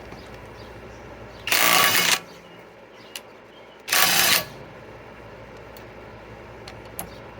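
Kobalt cordless right-angle impact wrench hammering on a wheel lug nut to loosen it, in two short bursts of about half a second each, a couple of seconds apart.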